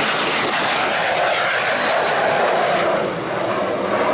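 Gulfstream G100 business jet's twin rear-mounted turbofans at takeoff power as it lifts off and climbs away: loud, steady jet noise with a thin high whine that glides slowly down in pitch.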